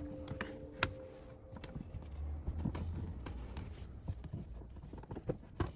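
Faint handling noises: light scraping and scattered small clicks over a low rumble, with a sharp click about a second in and another near the end.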